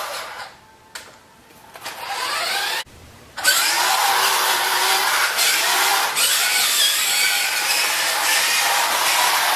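Vintage Radio Shack Off-Roader 4x4 RC truck's electric drivetrain whining as it drives, the pitch rising and falling with the throttle. It cuts out twice briefly in the first few seconds, then runs on without a break.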